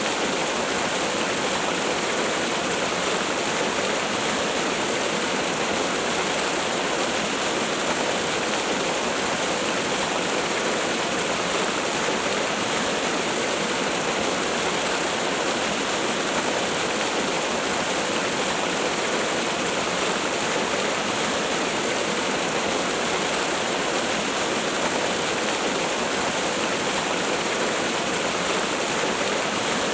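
Waterfall or cascading stream: steady, even rush of falling water without a break.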